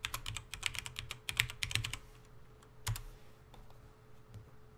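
Typing on a computer keyboard: a quick run of keystrokes for about two seconds, then a single keystroke about three seconds in.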